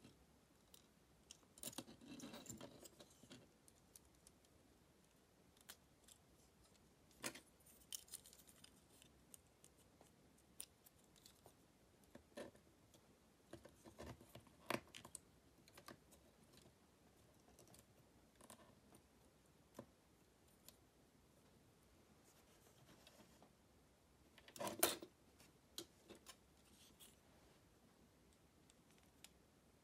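Faint, scattered clicks, taps and light rustling of plastic model-kit parts being handled and fitted together, with a louder click about 25 seconds in.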